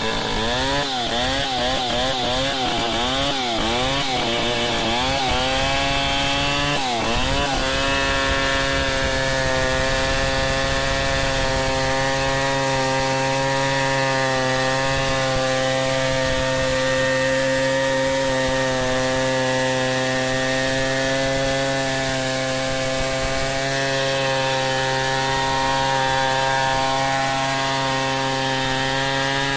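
Stihl 070 two-stroke chainsaw freehand-milling a log lengthwise under load. For the first seven seconds or so the engine pitch rises and falls over and over as the saw bogs and recovers in the cut, then it settles into a steady high-revving whine as it rips along the log.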